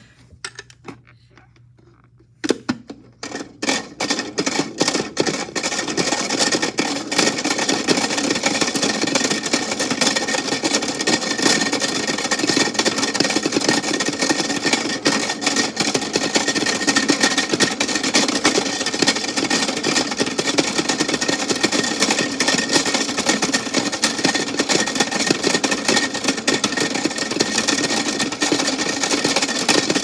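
Craza Tide toy washing machine starting its drum spin. Clicking starts about two seconds in and speeds up over a few seconds into a steady whirring rattle of the small motor and plastic drum.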